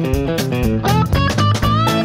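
Background music: quick plucked notes stepping up and down over a low bass line, moving into held, bending notes near the end.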